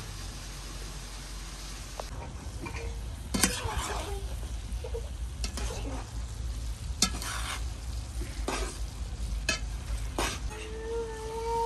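Food sizzling in a pan while being stirred, with a utensil scraping or knocking against the pan about half a dozen times.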